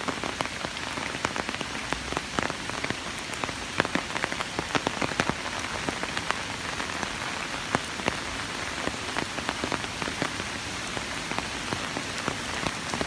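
Steady heavy rain falling, with many sharp individual drops ticking close by.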